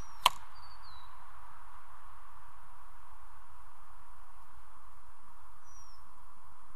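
A single sharp thwack from an archery shot. Under it runs a steady hiss, and a few short, high, falling bird chirps come around the shot and again near the end.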